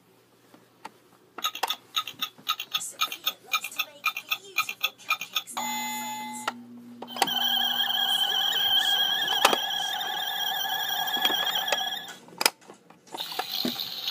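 Electronic sound effects: a run of rapid clicks, a short beep, then a steady electronic tone for about five seconds, ending in a noisy hiss.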